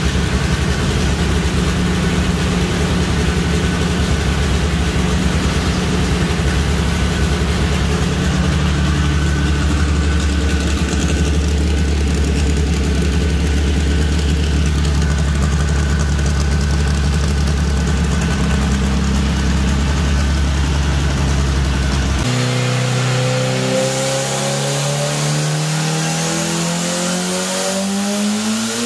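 Turbocharged 2.0 engine of a 1987 Jetta methanol drag car running at a steady speed. About 22 seconds in, the sound changes abruptly and the engine's pitch begins climbing slowly and steadily.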